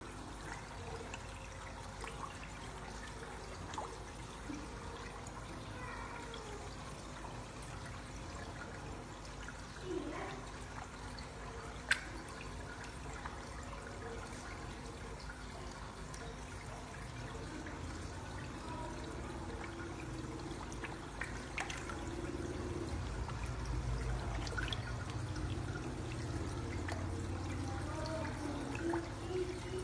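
Water sloshing and trickling as koi splash at the surface of an indoor tank, taking food from a hand, over a steady low hum. A few small sharp clicks come around the middle, and the water grows a little louder in the last third.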